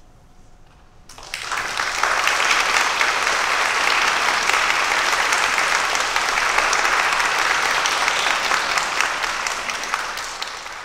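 Audience applauding after the orchestra's final note. The applause breaks out suddenly about a second in, after a brief hush, holds steady as a dense patter of clapping, and begins to fade near the end.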